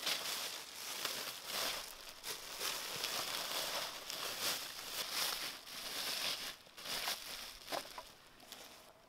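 A white press cloth being spread and pushed down into the wooden basket of a fruit press, rustling and crumpling irregularly, dying away near the end.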